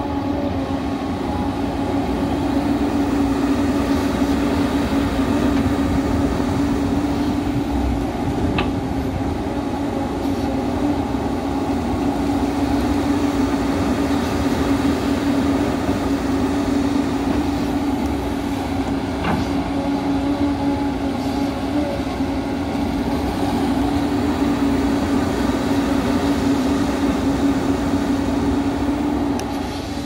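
JCB tracked excavator's diesel engine running under load as the machine digs and swings, with a steady droning hum over a rumbling clatter.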